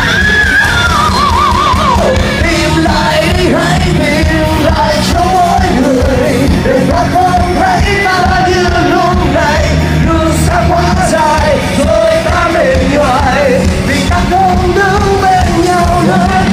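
Rock band playing loud and live, with drums and guitars under a bending, wordless vocal melody that opens on a high held note with vibrato.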